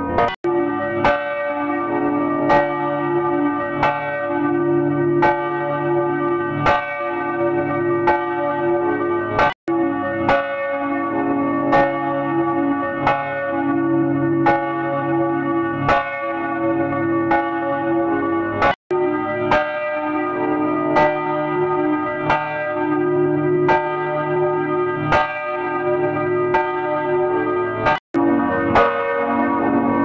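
Church bells pealing: several bells struck one after another, about once a second, their rings overlapping. The sound cuts out completely three times for a split second.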